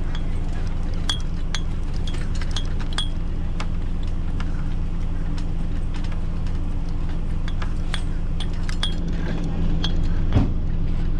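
Light metallic clinks and taps of sailboat rigging hardware on the mast as it is handled, many of them short and ringing, with a dull knock near the end, over a steady low engine hum.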